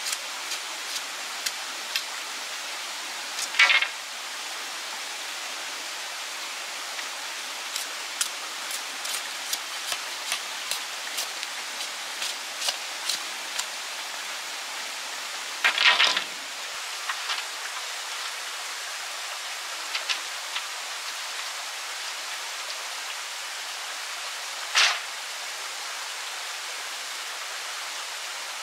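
Steady hiss of running water, with scattered light ticks and three brief louder noises, about 3.5, 16 and 25 seconds in.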